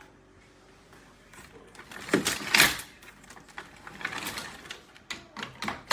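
Retractable mesh gate being handled: two stretches of sliding, rustling noise, then a few sharp clicks near the end, typical of the gate's latch and lock catching.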